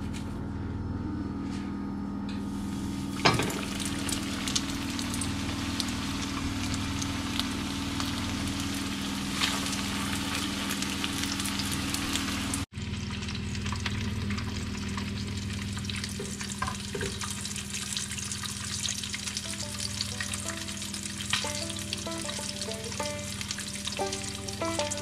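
Flour-dredged mackerel fish cakes sizzling steadily as they shallow-fry in about a centimetre of hot vegetable oil. The sizzle starts about two seconds in, as the first cakes go into the oil, and a sharp knock follows just after.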